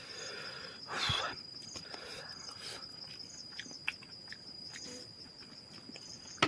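A steady high-pitched insect trill, pulsing evenly, with a short rustle about a second in and scattered faint clicks.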